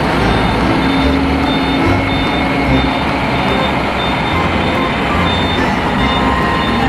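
Heavy truck engine running, with a reversing alarm beeping at an even pace, about one and a half beeps a second.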